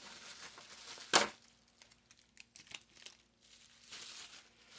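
Packaging being unwrapped by hand: one sharp crackle about a second in, then faint crinkling and small clicks, and a soft rustle near the end.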